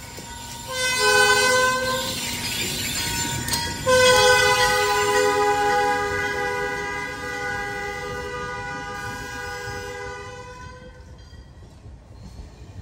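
Diesel locomotive's multi-note air horn sounding a blast about a second in, then a long blast from about four seconds in that slowly fades away, over the low rumble of the passing train.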